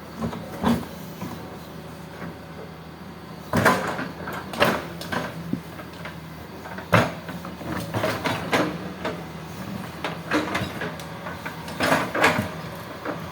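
Hitachi hydraulic excavator working: its engine runs steadily under irregular metallic clanks and knocks, which come in clusters from a few seconds in.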